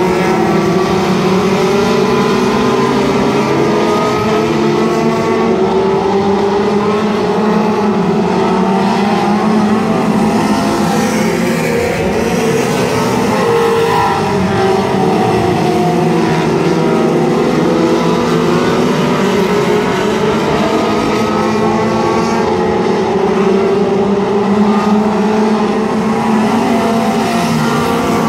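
A pack of four-cylinder Pony-class dirt-track race cars running at racing speed around the oval. Several engines sound at once, their pitches rising and falling as the drivers get on and off the throttle.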